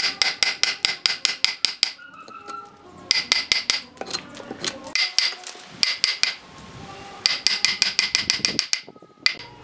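Hammer driving a wood chisel into a log stump in quick runs of blows, about six a second, each with a bright ring; the runs break off for short pauses several times.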